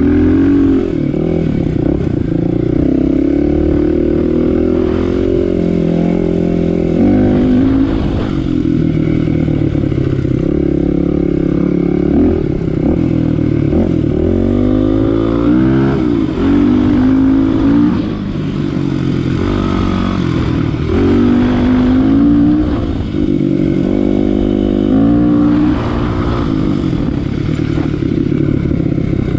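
Kawasaki KLX250 dual-sport's single-cylinder four-stroke engine running under way. Its pitch rises and falls again and again as the rider accelerates and eases off through the gears.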